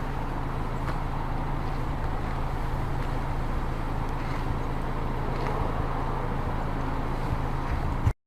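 Steady low rumble of road traffic, with a short thump near the end just before the sound cuts off.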